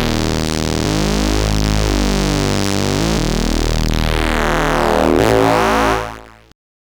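Ad-vantage 03m monophonic analog synthesizer playing a thick, buzzy tone with a tone colour that sweeps up and down, its low note changing every couple of seconds. It fades out about six seconds in.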